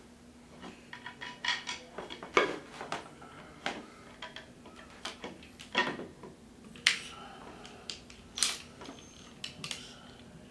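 Scattered light knocks and clicks, a second or so apart, from bamboo drawer panels, a screw and a cordless impact driver being handled and set in place; the driver is not running.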